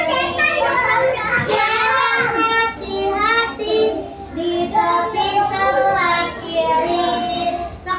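A group of young children singing a children's song together.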